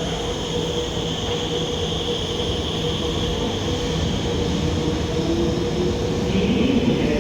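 Alstom Movia R151 MRT train sounding, a steady hum over a rumble, with a constant low tone, a mid tone and a high whine, none of them changing pitch.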